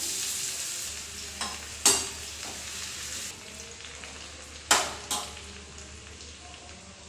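Cumin, ajwain and crushed garlic sizzling in hot ghee in a small steel tadka ladle, the sizzle fading as it is stirred. Two sharp metal clinks of the spoon against the ladle stand out, about two seconds in and near the five-second mark, with a few lighter taps.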